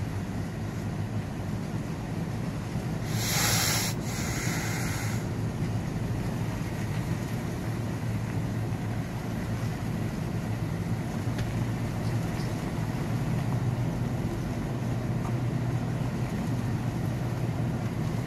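Steady low rumble of a vehicle driving, heard from inside the cab. About three seconds in a loud hissing rush comes in two parts and lasts about two seconds.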